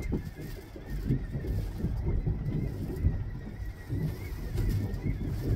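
Wind buffeting the microphone over the running noise of a fishing boat at sea, an uneven low rumble, with a faint thin wavering whine above it.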